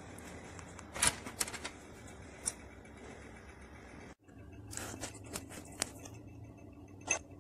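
Scattered light clicks and taps of small hard objects being handled on a workbench, over a faint steady background.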